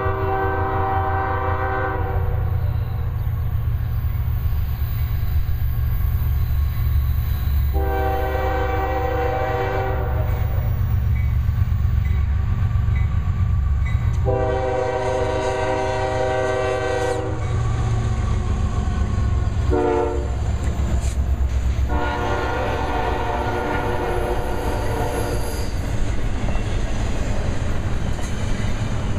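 Lead locomotive's air horn sounding three long blasts, a short blast near the middle, then a final longer blast: the grade-crossing warning. Under it the steady low rumble of the train's diesel locomotives runs throughout.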